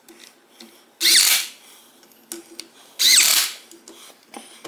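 Cordless drill with a hex bit running beadlock-ring bolts into a wheel: two short bursts about two seconds apart, each with a rising motor whine, with faint clicks of parts in between.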